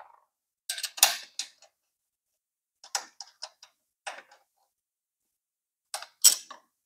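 Ratchet wrench clicking in four short runs of quick clicks, a second or two apart, as an M8 footrest hanger bolt on a motorcycle frame is worked loose.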